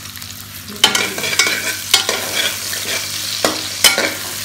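Sliced onion, garlic and ginger sizzling in hot oil in a metal karahi. From about a second in they are stirred with a slotted metal spatula: the sizzle grows louder, with several sharp knocks and scrapes of the spatula against the pan.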